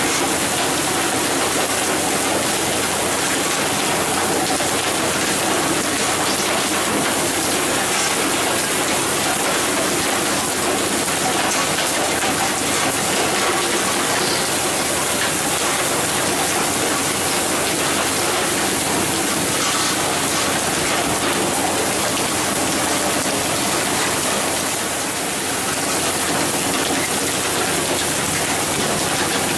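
Steady rushing hiss of water spray and wash streaming along the side of a moving fishing boat, much like heavy rain, easing off slightly about 25 seconds in.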